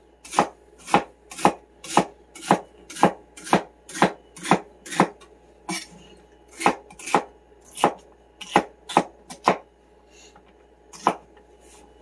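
Kitchen knife chopping stacked celery ribs into quarter-inch slices on a cutting board: sharp strokes about two a second, thinning out to a few last cuts near the end.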